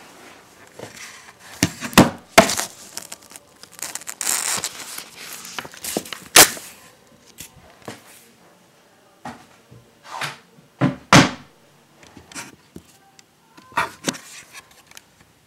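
Irregular knocks and sharp clicks with bursts of rustling, as of things being handled and bumped close to the microphone.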